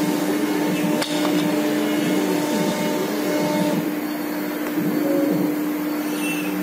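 5.5 kW spindle of a 1325 CNC router running at speed, a steady hum with a rushing noise beneath it. A single sharp click about a second in.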